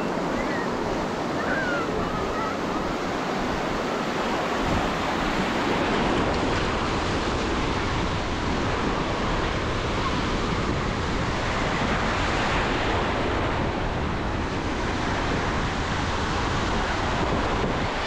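Surf at the shoreline: small waves breaking and washing up the sand in a steady, continuous wash.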